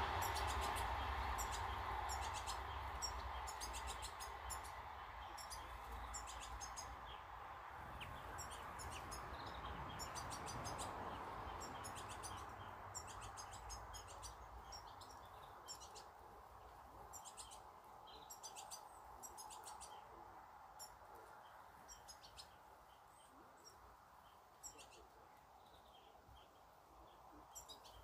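Small finches, European goldfinches, chirping and twittering in quick high clusters. Under them a broad background rumble fades steadily away over the first half.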